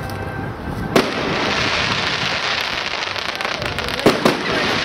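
Fireworks display: an aerial shell bursts with a sharp bang about a second in, followed by a steady crackling hiss. Two more bangs come close together near the end.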